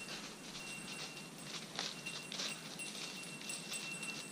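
Footsteps crunching through snow-dusted leaf litter and brush scraping past, in an irregular run of short crackles, with a faint metallic jingle.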